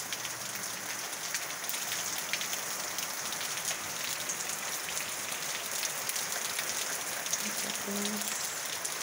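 Steady rain falling, an even hiss with many separate drops clicking close by.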